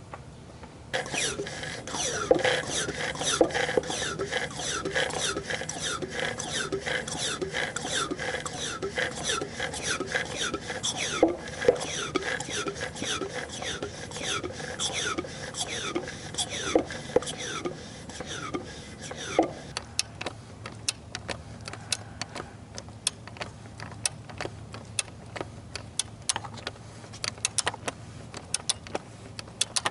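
Manual oil extractor pump being worked by hand, with repeated rubbing strokes each carrying a short falling squeak, about two a second, building suction to draw the engine oil up through the dipstick tube. A little before 20 seconds the pumping stops, and scattered ticks continue over a faint low hum.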